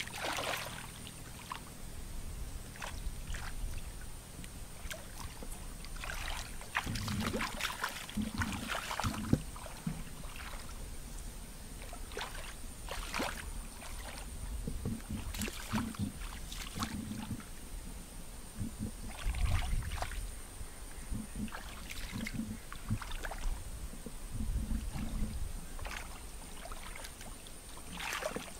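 Water splashing and sloshing in irregular bursts as bare feet wade and hands grope through a shallow muddy ditch, catching fish by hand.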